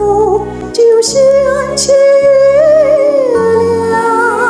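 A woman singing a slow Mandarin song, holding long notes with vibrato, over a recorded accompaniment with a steady low bass.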